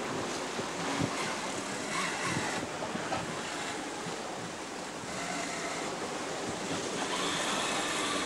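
Rushing of wind and breaking swell around a yacht under sail, with wind buffeting the microphone and a couple of light knocks.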